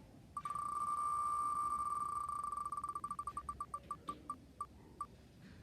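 An electronic beep tone holds steady for about two seconds, then breaks into short beeps that come further and further apart, like a random-picker sound effect slowing to a stop.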